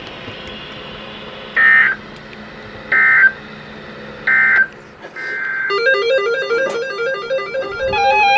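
Three short Emergency Alert System end-of-message data bursts, buzzy digital squawks that signal the alert is over, about a second and a half apart. About halfway through, instrumental music with a quick stepping melody starts.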